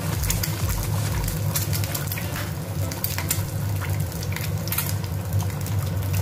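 Eggs frying in oil in a nonstick pan, a steady sizzle with scattered sharp pops and crackles.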